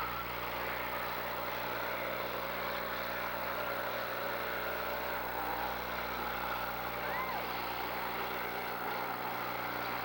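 Demolition derby cars' engines running, a steady, even wash of engine noise with no single event standing out.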